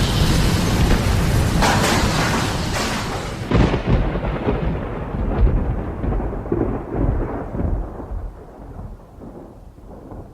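Deep thunder rumbling, with sharp cracks about two and three and a half seconds in, then fading away and growing duller as the high end dies out first.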